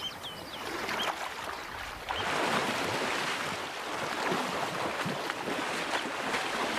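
Water splashing and churning as a Nile crocodile thrashes a hippo calf's carcass in shallow river water, growing louder about two seconds in. A few short bird chirps in the first second.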